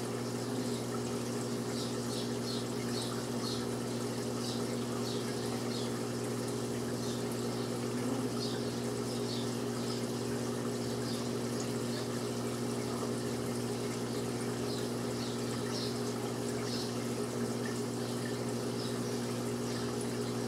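Aquarium filter running: a steady electric hum under trickling, bubbling water, with scattered faint high ticks.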